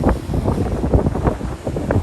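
Strong wind buffeting the microphone: a heavy low rumble broken by rapid, irregular gust blasts.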